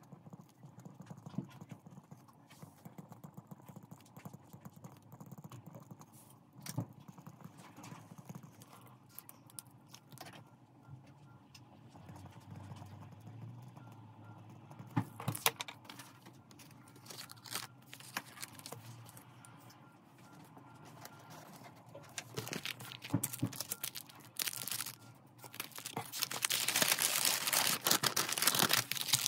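Hands handling packaging on a wooden desk: scattered light taps and knocks of cards and paper on the tabletop, then a louder stretch of paper rustling near the end as a kraft paper envelope is handled.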